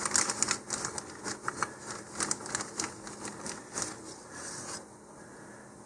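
Clear plastic bag crinkling and rustling in irregular crackles as it is handled with balsa wood parts inside; it stops about five seconds in.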